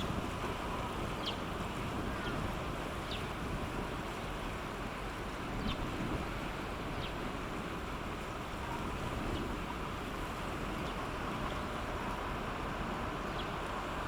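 Steady rumble of wind on the microphone over the low running noise of a cargo ship passing close by. A few faint, short, high chirps come and go through it.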